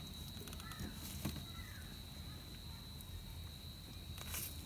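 A few faint clicks and knocks of hands working down in a car's engine bay, over a steady high-pitched whine and a low hum.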